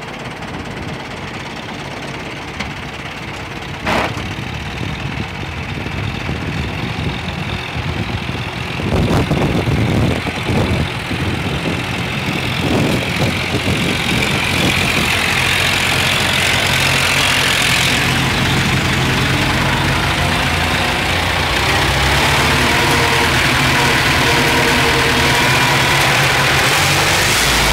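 IMT 539 tractor's three-cylinder diesel engine working under load as it pulls a plough in second gear. It gets steadily louder as the tractor draws near, then drones evenly close by. There is one sharp click about four seconds in.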